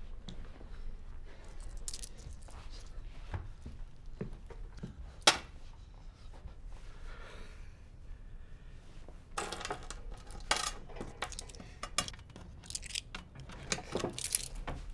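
Small clicks, taps and rustling of objects being handled, with one sharp click about five seconds in and a busier run of clicks and rustling in the last five seconds.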